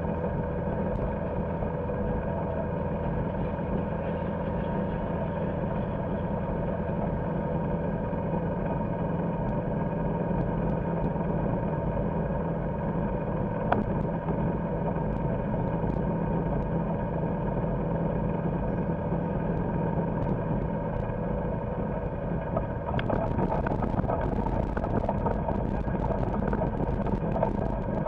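Golf cart driving steadily, its motor droning at an even pitch over tyre and road noise. About three-quarters of the way through the tyres run onto gravel and a steady crunching crackle joins in.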